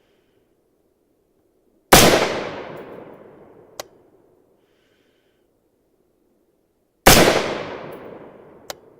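Two rifle shots from an AR-15 in 5.56, about five seconds apart, each sharp report trailing off over a couple of seconds. A short, sharp crack follows each shot nearly two seconds later.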